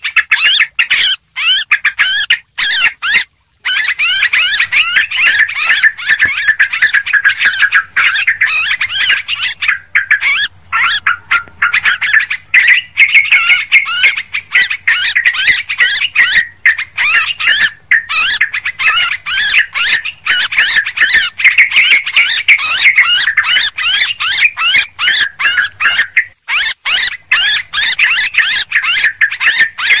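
Yellow-vented bulbuls chattering with many overlapping bubbly calls, a noisy lure recording for attracting the birds. The calls break off in a few short gaps in the first seconds, and a faint low hum comes in underneath a few seconds in and drops out near the end.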